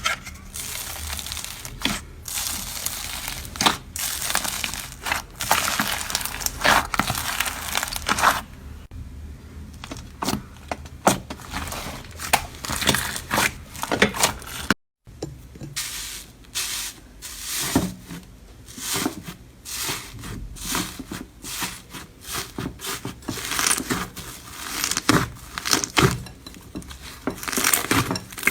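Slime being squeezed, stretched and poked by hand, giving dense, irregular crackling and clicking with softer tearing and crinkling sounds between. The sound breaks off for a moment about halfway through, then carries on.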